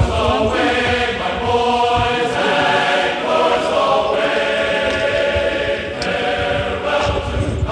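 Background music of choral, chant-like singing with long held notes.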